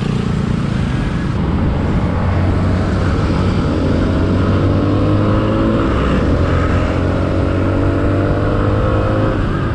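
Yamaha Sniper 150's single-cylinder four-stroke engine running under load on an uphill climb, held at high revs. Its pitch rises gradually through the second half as the bike gathers speed.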